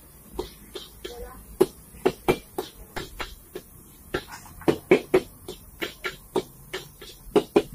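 A long metal spatula clanking and scraping against a large iron wok while stir-frying chopped onions and vegetables: irregular sharp metal strikes, a few to several a second, some much louder than others.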